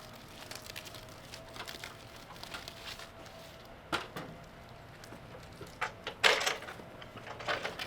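Scattered knocks and clatters of handling work, sharpest about four seconds in and loudest in a quick cluster a little after six seconds.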